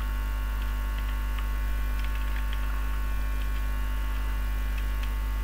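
Steady electrical mains hum with its stack of overtones on the recording line, with faint scattered clicks of keys being typed on a computer keyboard.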